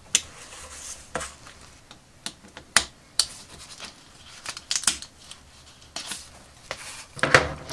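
Craft knife blade cutting through thin 300-micron acetate sheet along a steel ruler: a run of short, sharp scratching ticks at irregular intervals.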